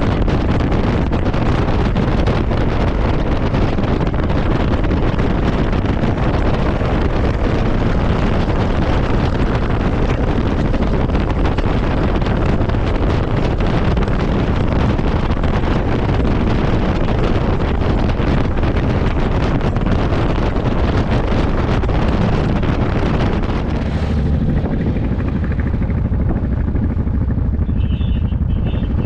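Wind rushing over the microphone of a camera on a moving motorcycle, with the engine running underneath. The rush of wind eases near the end.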